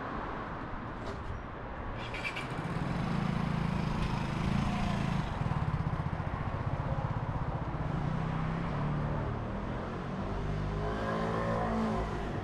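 Street traffic, with a motor vehicle's engine running close by. It swells about two seconds in and keeps up a steady low hum to the end, with a short clatter as it swells.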